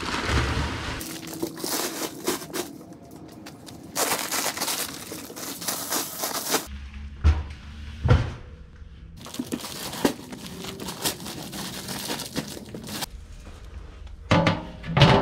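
Rustling and scraping in several stretches of a couple of seconds each, with a few sharp knocks: things being handled and shifted about.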